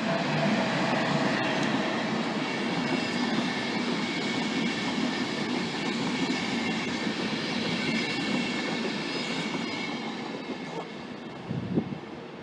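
A train passing close by: rumbling wheel and rail noise with a faint high whine. It swells at the start, holds steady, and fades away over the last few seconds. A short bump comes near the end.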